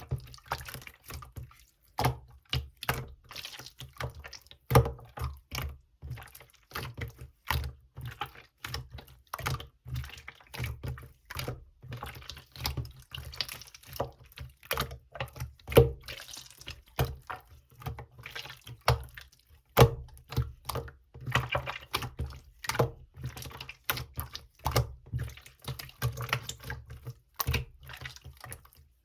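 Clear slime squished and pressed by hand, giving a steady run of irregular wet clicks and pops, several a second.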